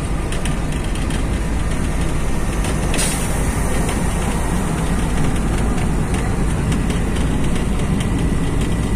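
Old bus heard from inside the passenger cabin: steady engine and road noise with the body and fittings rattling, and a brief hiss about three seconds in.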